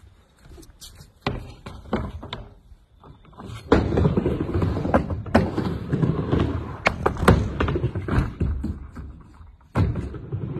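Skateboard riding a homemade bowl ramp: scattered knocks and thuds at first, then, about four seconds in, a steady rolling rumble of the wheels on the ramp with sharp knocks of the board against it.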